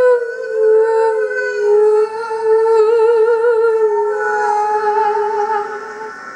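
A human voice humming long, held notes on a steady pitch, wavering in a slow vibrato about halfway through and fading near the end.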